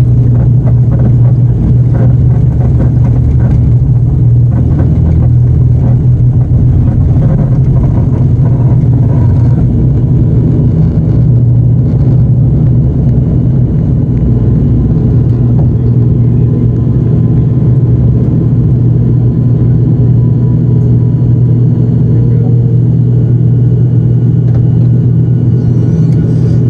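Turboprop airliner's engine and six-bladed propeller at takeoff power, a loud steady low drone heard from inside the cabin through the takeoff run, liftoff and initial climb.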